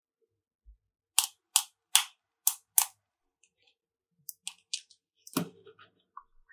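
Five sharp, loud clicks in quick succession, roughly two to three a second, then a few fainter clicks and a duller knock near the end.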